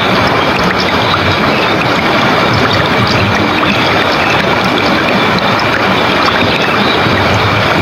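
Fast-flowing river water rushing steadily and loudly.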